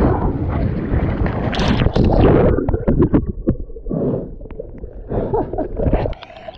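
Wind buffeting the microphone and water rushing and splashing against the hull of a small sailboat in rough water, with scattered knocks; it thins out partway through and drops off about six seconds in.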